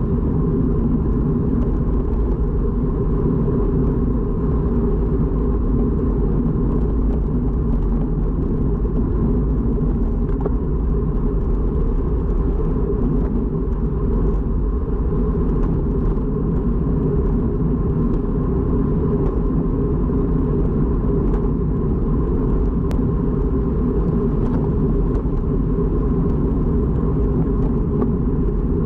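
Steady wind rumble on the microphone with road noise from riding at race speed on a bicycle, unbroken throughout.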